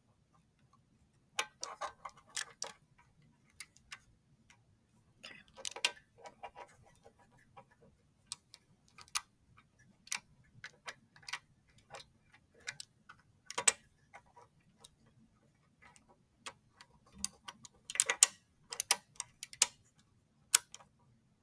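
Plastic atom and bond pieces of a magnetic molecular model kit clicking and clacking together as they are handled and snapped into place while double bonds are fitted. The clicks come irregularly, in several short clusters.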